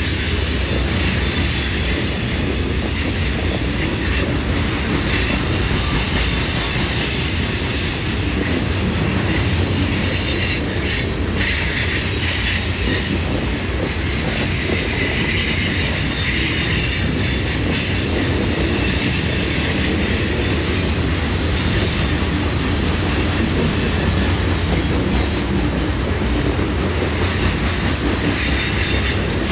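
CSX train rolling past at close range, its cars clattering steadily over the rails with a high-pitched wheel squeal running through it.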